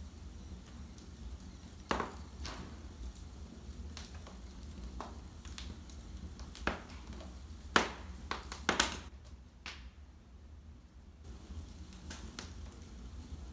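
Fire burning in a fireplace: irregular sharp crackles and pops, a cluster of louder ones about eight to nine seconds in, over a steady low hum.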